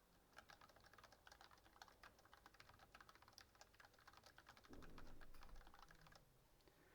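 Fast typing on a computer keyboard: a quick, faint stream of key clicks that stops about six seconds in.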